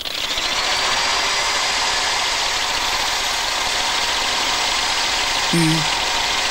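Cartoon sound effect of a beaver gnawing a rhinoceros horn to grind it to a point: a steady, even rasping grind that starts abruptly. A brief voice sound comes near the end.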